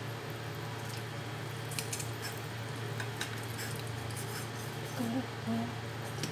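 A kitchen knife sawing through a cooked chicken wing, its blade clicking and scraping now and then against a ceramic bowl, over a steady low hum.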